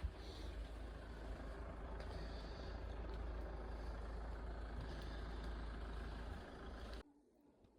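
A vehicle running, a steady low rumble with road noise, which cuts off suddenly about seven seconds in.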